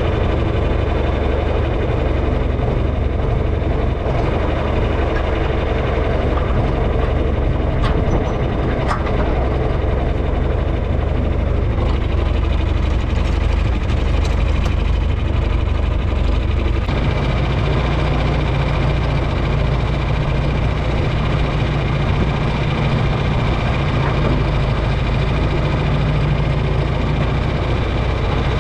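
Tractor engine running steadily, its tone shifting to a different pitch a little over halfway through.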